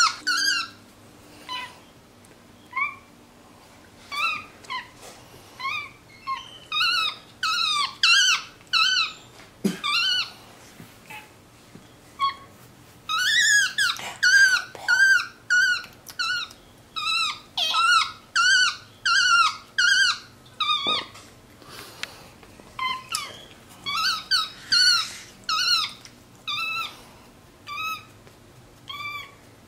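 Tufted capuchin monkey making a string of short, high-pitched squeaky chirps, a few a second, each rising and falling in pitch. The calls come in bouts of several seconds with brief pauses between them.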